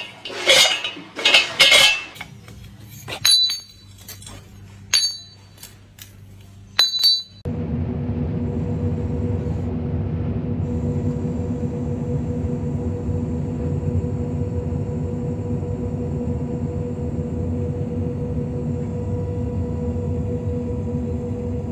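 Glowing charcoal in a metal bucket, a few sharp, ringing clinks. About seven seconds in it cuts to a combine harvester running steadily with a low hum, heard from inside the cab.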